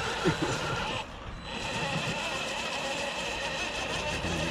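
Electric drive motor and gearbox of a radio-controlled rock crawler whining under load as it crawls up a steep dirt bank. The high steady whine drops out briefly about a second in, then holds level.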